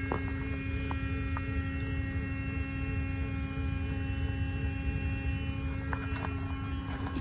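Steady background hum over a low rumble, with a slowly wavering tone above it and a few faint clicks.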